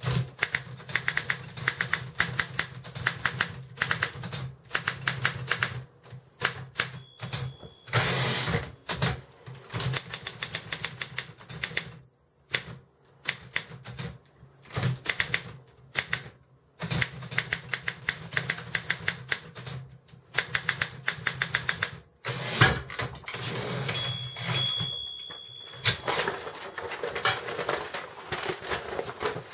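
Optima 16 typewriter being typed on: runs of rapid, sharp key strikes with short pauses between them. A brief ringing tone sounds twice, about a quarter of the way in and again near three-quarters, each near a short stretch of sliding, rattling noise.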